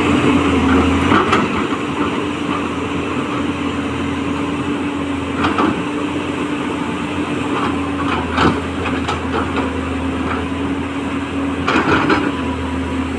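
210LC crawler excavator's diesel engine running steadily, with a few sharp knocks about five and a half, eight and a half and twelve seconds in.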